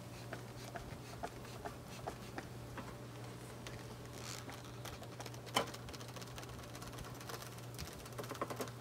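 Bee smoker's bellows being pumped to puff smoke over the hive: soft puffs with scattered clicks and taps, and one sharp click about five and a half seconds in, over a steady low hum.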